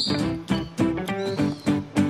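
Background music: a tune of short, quickly changing notes with high chirpy tones.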